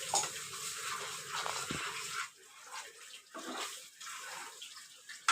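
Onion, garlic, dried chillies and dried fish cooking in a pan with a little water, a watery sizzle and bubble. It is fullest for about two seconds, then comes and goes in uneven patches.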